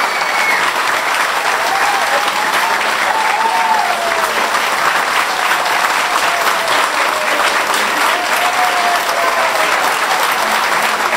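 A crowd applauding steadily, with a few voices calling out over the clapping.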